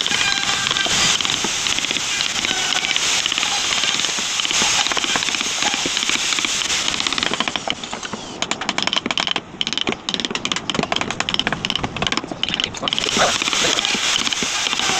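Wooden mallet tapping a woodcarving gouge into a carved wood panel in quick, repeated strikes. The separate knocks stand out most clearly from about halfway through, with a steady hiss under the first half.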